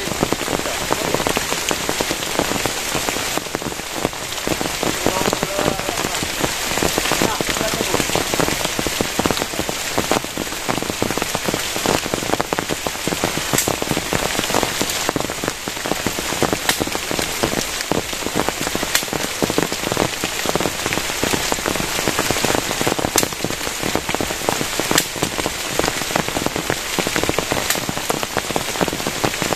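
Heavy rain falling steadily, a dense hiss with countless individual drop impacts ticking on a plastic-sheet shelter.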